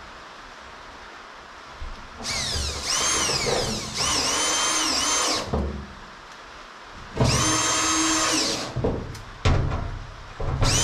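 Cordless drill running in two long pulls of the trigger. Its motor whine climbs in pitch as it speeds up, then holds. The first run starts about two seconds in and lasts about three seconds, the second starts about seven seconds in and is shorter, and short bursts follow near the end.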